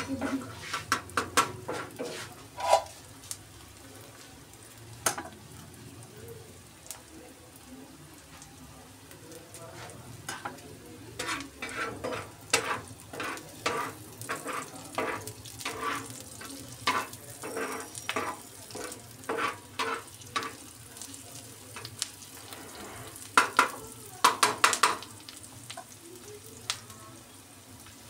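Chopped onions and green chillies frying on an iron tawa, stirred with a metal spatula: bouts of sharp scraping and clicking of the spatula on the pan, with quieter pauses between, over a faint steady sizzle.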